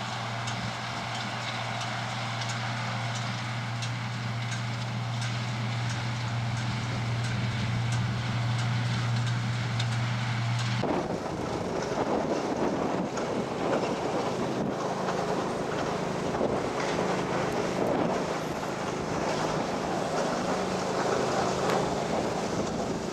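An engine running with a steady low hum. About eleven seconds in, the sound changes abruptly to a louder rushing noise with wind buffeting the microphone.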